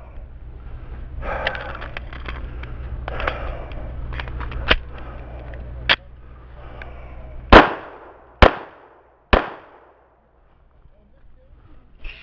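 Three loud pistol shots about a second apart from a Springfield XDm 5.25 in .45 ACP, each with a short ringing tail. Before them come rustling and handling noise with a low rumble, and two sharp clicks.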